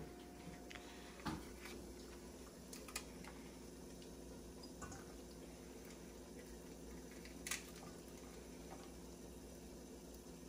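Faint drips and small splashes of water with a few light knocks as fish is washed by hand, the clearest knock about seven seconds in, over a steady low hum.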